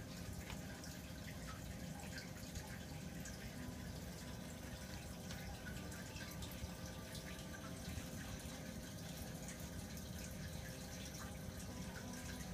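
Steady trickling and splashing of circulating water in a saltwater reef aquarium, with a faint steady hum and scattered light ticks.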